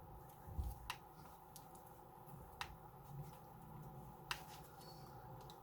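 Tractor running faintly in the background as a steady hum, with three sharp clicks at even intervals about a second and a half apart.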